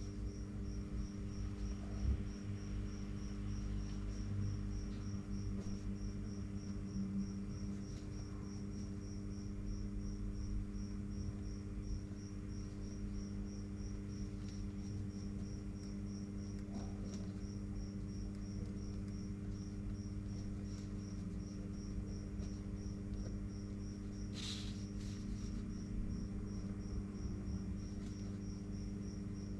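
A cricket chirping steadily at about two chirps a second over a constant low electrical hum, with one brief rustle about 24 seconds in.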